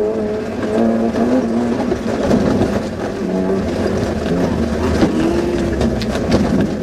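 Suzuki Vitara off-road rally car's engine heard from inside the cabin, revving up and down as the driver works through the gears. Sharp clicks and knocks from the car over rough ground come through, most of them in the second half.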